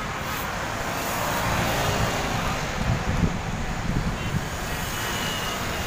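Road traffic noise from passing vehicles: a steady rumble and hiss that swells a little around the middle.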